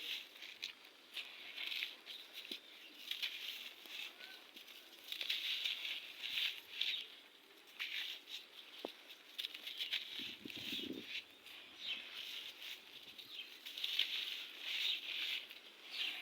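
Red sand crumbling: repeated bursts of gritty, crisp crackling with many small clicks, some a little louder than others.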